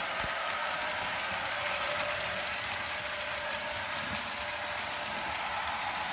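Märklin H0 model S 3/6 steam locomotive running with its passenger coaches: a steady mechanical whir and rattle of the small motor and metal wheels on the track.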